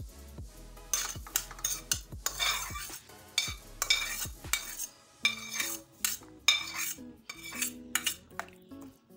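Steel ladle and steel bowl clinking and scraping against a stainless steel kadai as boiled vegetables and their cooking water are poured in. Many sharp clinks, busiest over the first five seconds, with a noisy pour in between.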